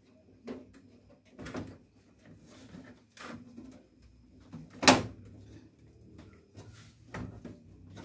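Several irregular knocks and clunks of a desktop computer's sheet-metal case being handled while a side-panel screw is worked loose by hand, the sharpest knock about five seconds in.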